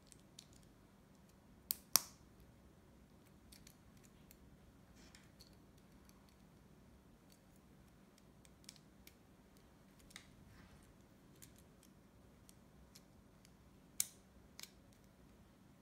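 Small plastic building bricks being pressed and snapped together by hand: scattered light clicks and taps, with two sharp snaps about two seconds in and another pair near the end.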